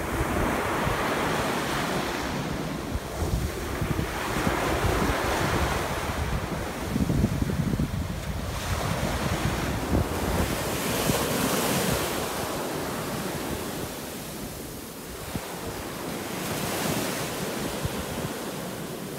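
Small waves washing up onto a sandy beach, the rush of surf swelling and fading every few seconds. Wind buffets the microphone.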